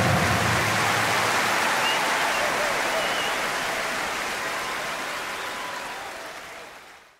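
A crowd applauding, fading out steadily and cutting off to silence near the end.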